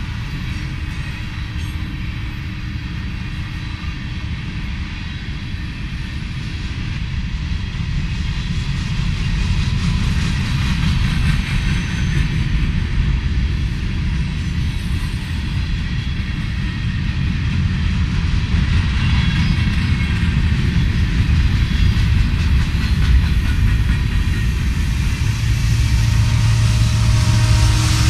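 Freight train of coal hopper cars rolling past on the rails, a steady low rumble that grows louder. In the last few seconds a diesel locomotive's engine drone joins it as locomotives pass close by.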